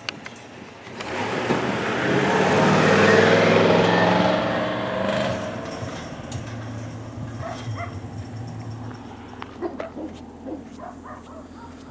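A motor vehicle passing by, its engine and tyre noise swelling to a peak about three seconds in and fading away by about six seconds, leaving a low steady hum.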